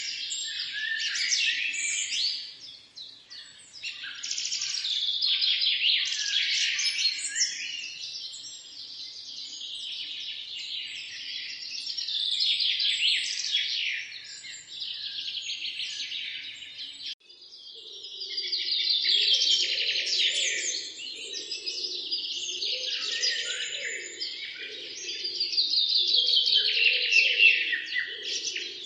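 A chorus of songbirds chirping and singing over one another in quick overlapping trills. About two-thirds of the way through the sound cuts out abruptly and resumes with a lower, steady murmur added underneath the birdsong.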